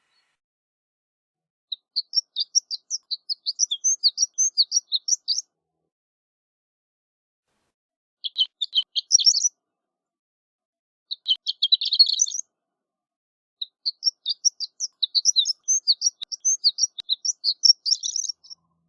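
Horned lark singing: four bouts of rapid, high, twittering notes separated by pauses of a few seconds. The first bout lasts about four seconds, the next two are short, and the last and longest runs about five seconds near the end.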